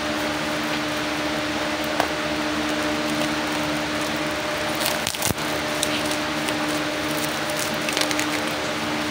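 Steady hum and hiss of an electric fan, with a few short crackles and clicks of packaging being handled about two, five and eight seconds in. The sharpest click comes just after five seconds.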